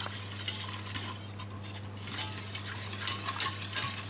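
Wire whisk beating cornflour into cold milk in a stainless steel pot: a quick, rhythmic swishing with the wires scraping the pot, getting louder and brisker in the second half. It is the stage of stirring until the cornflour dissolves.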